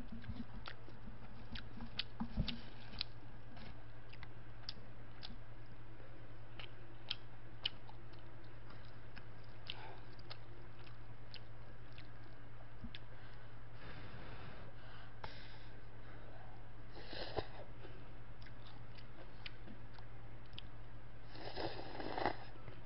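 Close-up eating of instant black-bean cup noodles: soft chewing with a few short slurps, about two-thirds of the way in and near the end, and scattered light clicks of utensils against the paper cup, over a steady low hum.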